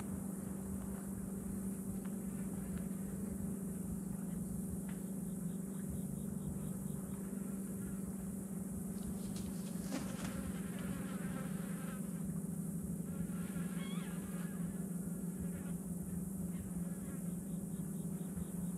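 Flies buzzing steadily close to the microphone around fish carrion. A single sharp knock comes about halfway through, and a brief high chirp a few seconds later.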